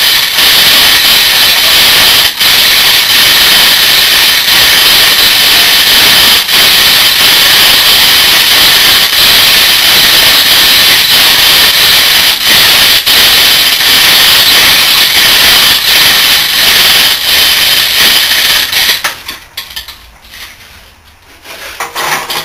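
Electric chain hoist running steadily as it lifts a roughly 200 kg refrigeration compressor, then stopping abruptly about 19 seconds in, followed by a few faint clinks.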